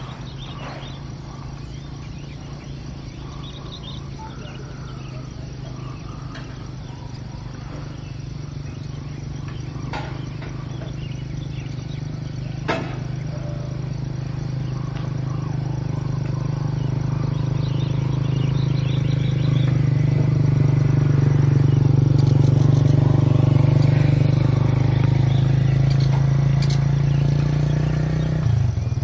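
A low, steady engine hum slowly grows louder over about twenty seconds and drops off suddenly near the end, with birds chirping and two sharp clicks in the middle.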